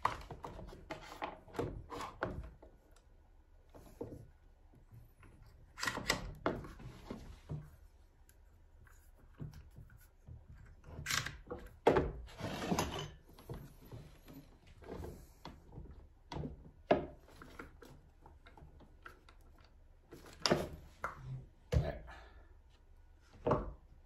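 Scattered clicks, clacks and thunks of a rifle bipod being handled: its legs pulled out to a longer setting and the rifle set down and shifted on a wooden table.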